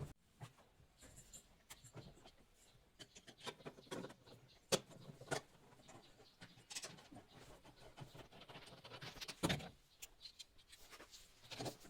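Scattered light clicks and knocks of hands handling washing-machine parts and tools, with two sharper knocks, one a little before the middle and one about three-quarters through.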